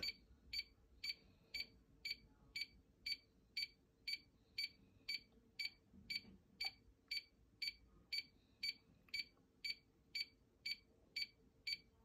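Electronic safe keypad beeping, about two short high beeps a second, which stop just before the end. It is the wrong-code alarm: the keypad is locked out after repeated wrong code entries.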